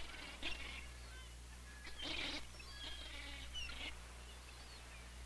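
Faint bird calls: scattered short chirps and squeaks, a little louder around two seconds in, over a steady low hum.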